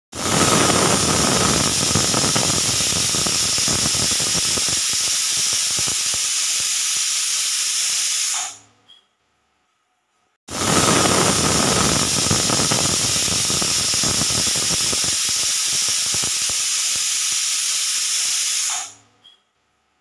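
Pressure cooker's weighted whistle valve blowing off steam in a loud, steady hiss with a faint whistle tone, twice, each lasting about eight seconds before dying away, with a couple of seconds of silence between.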